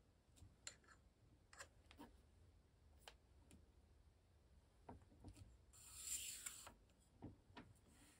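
Faint handling noise of air rifle barrel parts being hand-tightened and fitted: scattered light clicks and taps, with one brief rubbing scrape about six seconds in.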